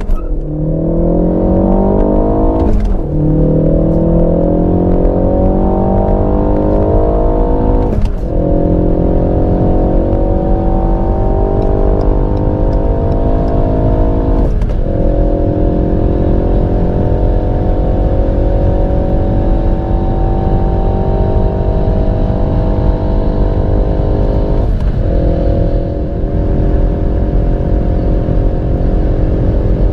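Ford Focus ST's 2.3-litre turbocharged EcoBoost four-cylinder engine under full throttle, heard inside the cabin. Its note climbs steadily and drops sharply at each of four upshifts, about 3, 8, 14.5 and 25 seconds in. Each gear climbs more slowly than the one before as the car nears its top speed.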